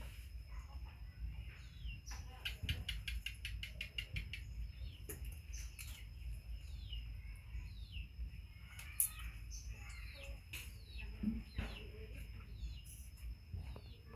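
Small birds chirping: short falling chirps repeated over and over, with a quick run of clicks about three seconds in.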